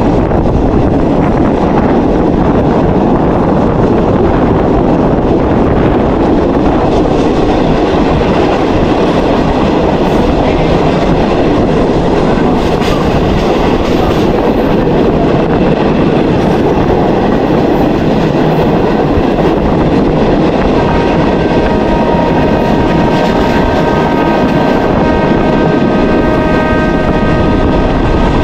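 Passenger train running along the track, a loud, steady rumble and rattle. About three-quarters of the way through, a held pitched tone made of several notes joins in and lasts to the end.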